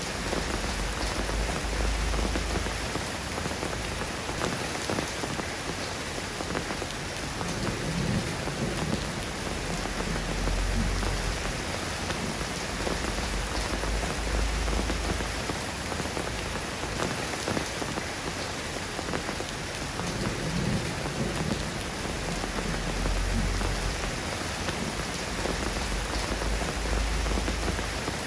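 Steady rain falling on a surface, an even hiss of drops, with a low rumble swelling up every few seconds.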